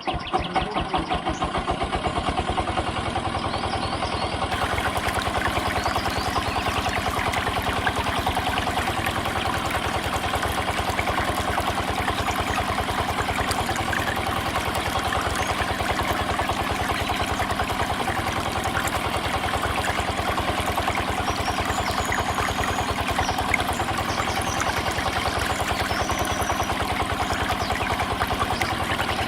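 A small engine starting up and then running at a steady speed with a rapid, even beat.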